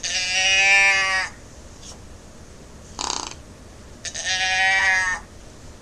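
Doe bleat can call (Primos 'The Can') turned over twice, giving two drawn-out bleats about four seconds apart. A short breathy puff sounds between them.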